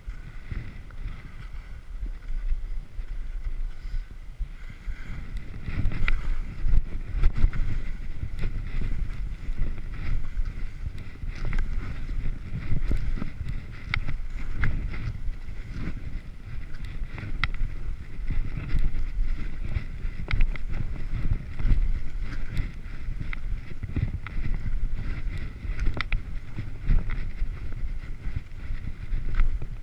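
2013 Blizzard Bonafide skis sliding and turning on snow, with wind rumbling on a helmet camera's microphone. Frequent short scrapes and clicks run through it, getting louder about six seconds in.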